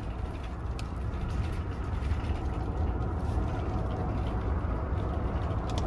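Steady low rumble and road noise of a van on the move, heard from inside its rear load area, with a few faint clicks.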